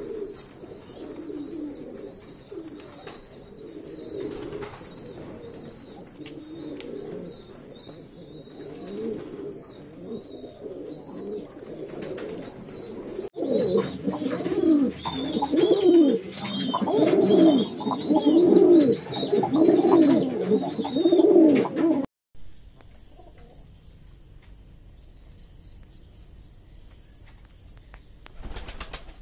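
Domestic pigeons cooing over and over, with higher chirps of small birds behind them. The cooing is louder through the middle stretch, then cuts off about three quarters of the way through, leaving only a faint steady background noise.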